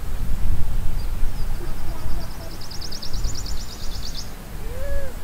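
Wind rumbling on the microphone in gusts. From about a second and a half in to about four seconds there is a fast, even, high-pitched trill, and near the end a short call rises and falls once.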